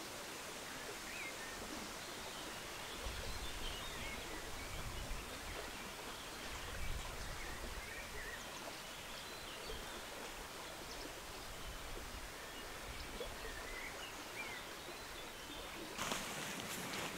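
Steady riverside ambience of flowing water and leaves, with scattered short, faint bird chirps. Near the end there is a louder rustle.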